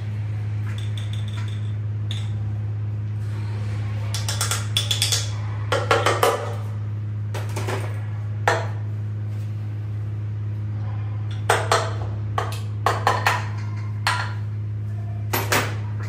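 Sharp metallic taps and clinks of tools and parts against a Toyota 2TR-FE engine block during piston installation. They come in small clusters of two or three over a steady low hum.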